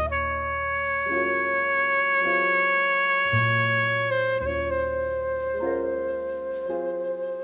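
Background music: a long held melody note, jazz-like in style, over chords that change every second or so and a low bass line.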